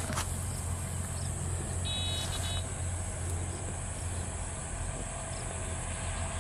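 Steady low drone of a distant engine. A brief, high-pitched beeping tone sounds about two seconds in.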